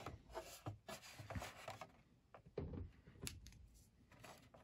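Faint handling noise from a plastic model kit being turned in the hands: scattered light clicks and rubbing scrapes.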